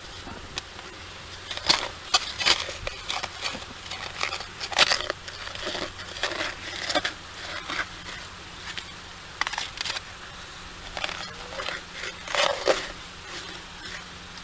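Digging into wet beach sand and hard clay to recover a metal detector target: a run of irregular crunching, scraping strokes as the tool cuts in.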